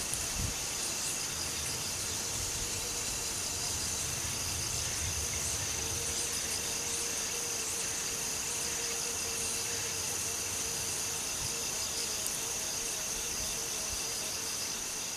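Steady, high-pitched chorus of insects chirring, with a faint steady hum beneath it. A low rumble runs through the first half.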